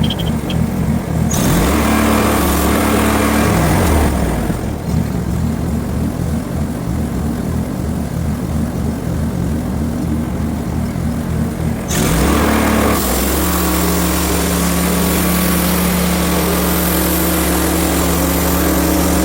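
Small gas engine of a portable band sawmill running steadily under the sawing of a small cherry log, its note changing a few times as the work goes on.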